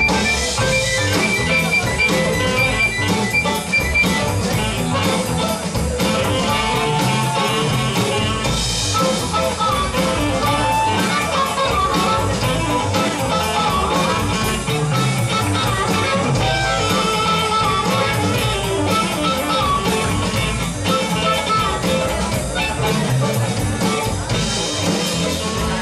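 Live funk-blues band playing an instrumental groove: electric guitars and drum kit, with a harmonica carrying a lead line that bends in pitch.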